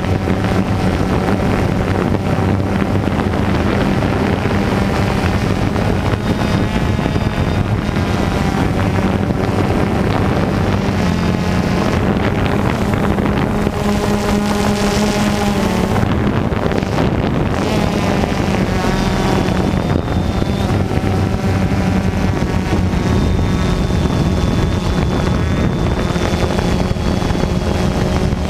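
DJI Phantom 2 quadcopter's motors and propellers buzzing steadily in flight, heard from the camera mounted on the drone, with wind on the microphone. The buzz shifts in pitch a little past halfway as the motors change speed.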